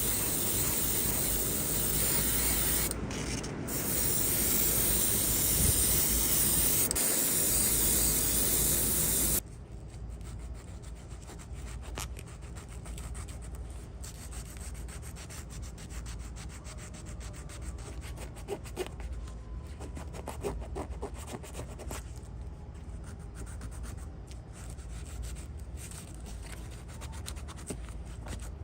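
Steady spray hiss for about nine seconds, which cuts off abruptly. It is followed by quick, quieter rubbing and sanding strokes on a small diecast model.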